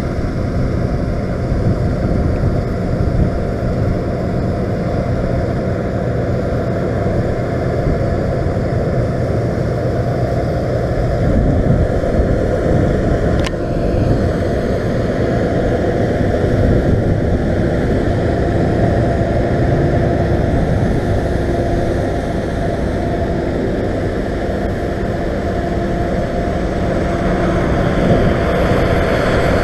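Fendt 939 tractor engine running steadily as it hauls a chaser bin past at close range, with the Claas Lexion 670 TT combine harvester working close behind. A single sharp click comes about halfway through.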